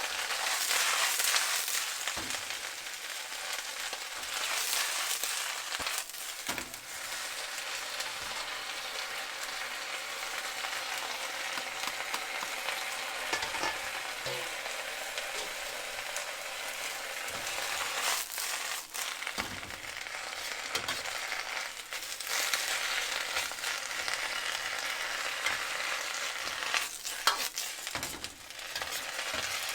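Food sizzling and frying in a hot pan while it is stirred, with a steady hiss and occasional scrapes and knocks of the utensil against the pan.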